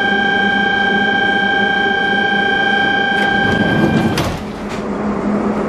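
Door-closing warning buzzer of a Budapest HÉV suburban train: one steady high tone that cuts off about four seconds in, with a knock as the doors shut. A low steady hum from the train runs underneath.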